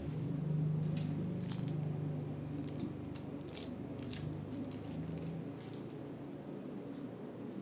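Scattered light clicks and taps from small objects being handled, over a steady low hum.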